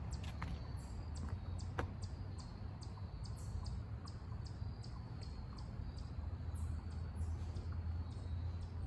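Small birds chirping: short high-pitched chirps repeating irregularly over a steady low rumble, with a couple of faint clicks early on.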